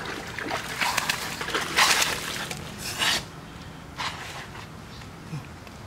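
Hands splashing and sloshing water in a plastic bucket in several uneven bursts over the first three seconds, loudest around two and three seconds in, as someone washes up. A shorter rub or splash follows about four seconds in.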